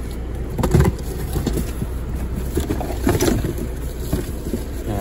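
Low steady rumble inside a car's cabin, with brief knocks and rustles from handling about a second in and again about three seconds in.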